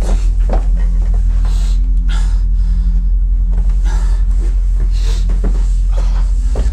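Irregular thuds and knocks of footsteps on a staircase and a jostled handheld camera, over a steady deep drone.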